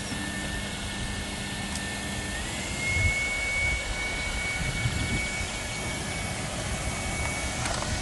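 Numatic Henry-family tub vacuum cleaner running, its motor giving a steady whine over rushing air; about two and a half seconds in the whine steps up slightly in pitch.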